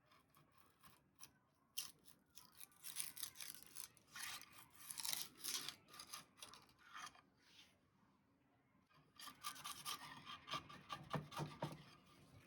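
A hand tool scraping or rasping across wood in quick, irregular strokes, in two spells with a short pause between them, as new veneer strips are worked.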